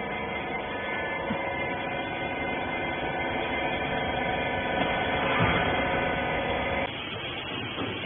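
A rag baler's hydraulic pump motor running with a steady hum, growing a little louder over several seconds, then cutting off abruptly about seven seconds in.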